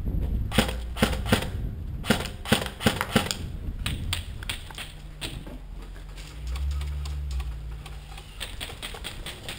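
Specna Arms M4 airsoft electric rifle firing single shots in quick, irregular succession: a string of sharp clicks, densest over the first four seconds and more scattered after.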